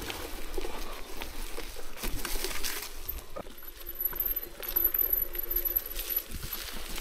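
Mountain bike riding down a dirt trail: steady tyre noise with many small rattles and clicks from the bike.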